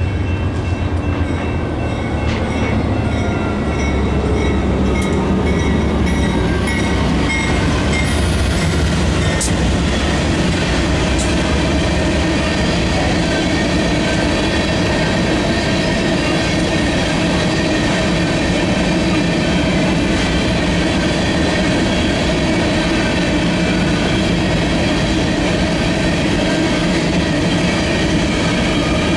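BNSF grain train of covered hopper cars rolling past: a steady, loud rumble and clatter of steel wheels on rail. A deep low rumble is heaviest in the first few seconds.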